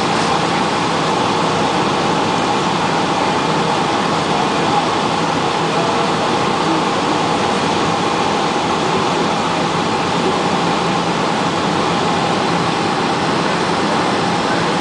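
Steady cabin noise inside a Boeing 757 on approach: engine and airflow roar heard from a window seat over the wing, even throughout, with a faint steady tone running through it.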